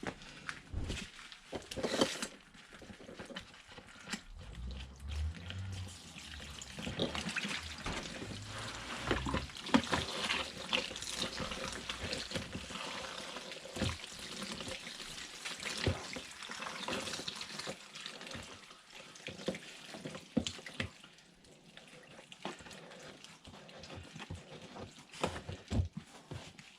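Water running and splashing, with scattered knocks and clicks of handling.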